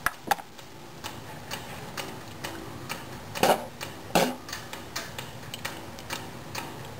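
Steady, faint ticking, about two ticks a second. Near the start there are a couple of louder knocks, and midway two brief rustling bursts come as the snus can is handled.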